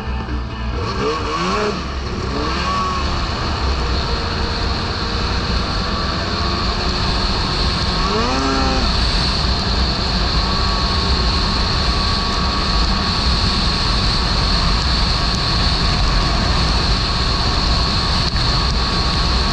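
Snowmobile engine running at speed over snow, getting louder over the first few seconds. The engine pitch briefly swells and falls a few times, over a steady high whine.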